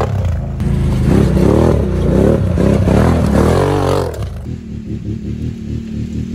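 Can-Am Renegade 1000 quad's V-twin engine revving hard close by, the pitch rising and falling several times as the throttle is worked through mud. About four seconds in it gives way to a quieter, lower, steadier engine of another ATV further off.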